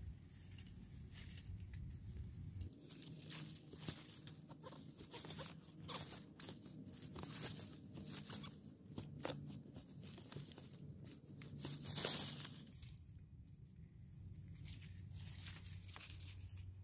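A knife cutting and prying young resinous polypore (Ischnoderma resinosum) caps off a bark-covered log, making irregular crunching and tearing scrapes. One crunch about twelve seconds in is louder than the rest.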